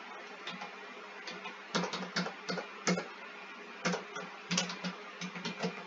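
Typing on a computer keyboard: irregular keystrokes, single and in quick runs, while code is being entered. A faint steady hum lies underneath.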